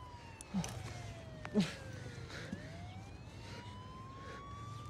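Police siren wailing slowly, its pitch sliding down for about two seconds and then climbing back up. Two short grunts from a struggle break in during the first two seconds.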